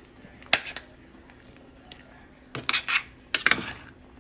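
Metal utensil clinking and scraping against a cooking pot: one sharp clink about half a second in, then a run of clanks and scrapes in the second half.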